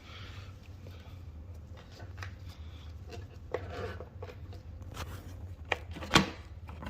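Vacuum cleaner picking up loose debris from a carpet: a steady low motor hum with crunchy crackling and ticking as grit is sucked in, growing denser later on, with one sharp crack about six seconds in.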